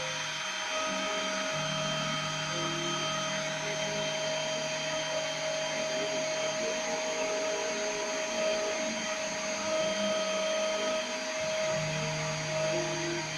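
Small CNC milling machine running while it mills a printed circuit board: the spindle gives a steady whine, and a lower hum from the axis motors comes and goes as the machine moves between cuts.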